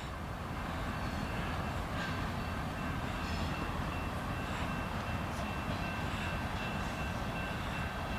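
Union Pacific freight train rolling on the rails, a steady low rumble, with a faint thin high whine joining about two seconds in.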